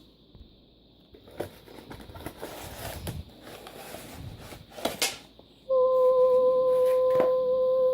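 Rustling and handling of a cardboard craft-kit box and its contents, with a sharp click about five seconds in. Then comes one loud, steady, beep-like tone lasting about two and a half seconds, the loudest sound.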